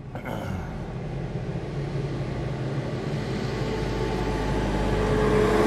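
Tractor's diesel engine running as it approaches and passes close alongside with its trailer, its sound growing steadily louder towards the end. Heard from inside a car.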